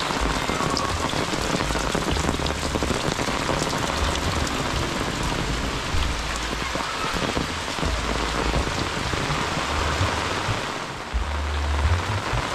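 Steady rain falling on roofs and a muddy lane, with close drops ticking and a low rumble that comes and goes, strongest near the end.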